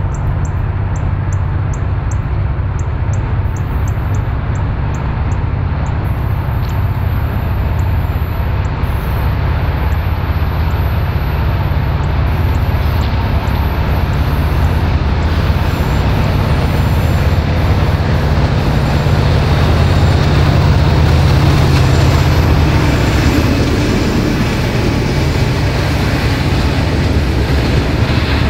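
Two Norfolk Southern diesel-electric locomotives hauling a loaded coal train approach and pass, their low engine drone growing steadily louder to a peak about twenty seconds in. Near the end the loaded coal hoppers are rolling by on the rails.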